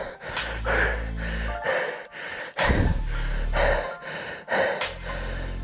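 A mountain biker breathing hard and fast, about two gasping breaths a second, over background music with steady bass notes.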